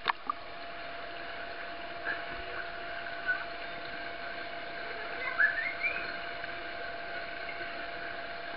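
Steady splashing and lapping of pool water with a fountain running, over a constant hum. Two sharp clicks at the very start, and a few short rising chirps about five and a half seconds in.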